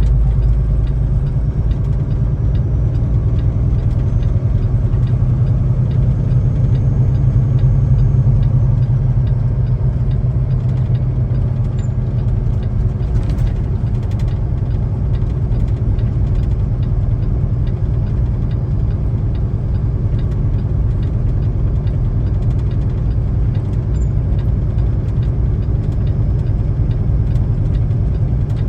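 Semi truck's diesel engine running steadily at low revs in sixth gear, with a constant low rumble while the truck rolls downhill on snow-chained drive tires.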